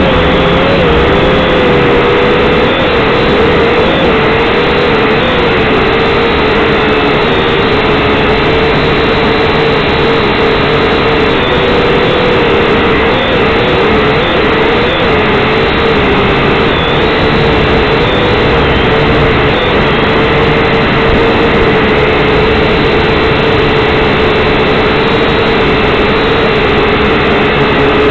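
Syma X5C quadcopter's motors and propellers buzzing loudly in flight, heard up close from its own onboard camera. The pitch wobbles up and down through the first half, then holds steadier.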